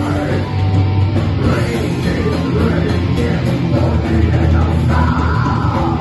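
Live rock band playing loud: electric guitars, bass and a drum kit, with a vocalist singing into a microphone.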